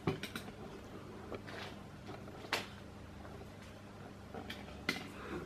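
A few light clicks and knocks with soft scuffing from the camera being handled and turned around, over a faint steady low hum.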